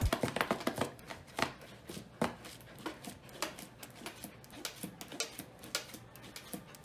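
Old English Sheepdog puppy scrabbling at a cardboard box, a string of irregular scratching and crackling clicks of cardboard.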